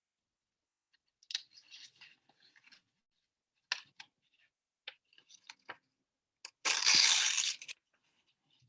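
A sheet of paper being torn into pieces by hand: several short rips, then one long, loud rip near the end.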